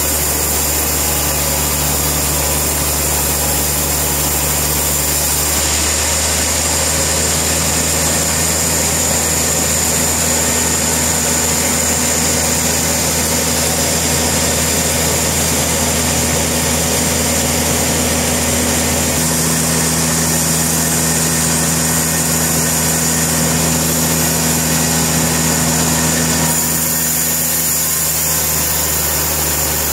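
Portable sawmill's engine running steadily and loud, its note shifting three times as the load on it changes.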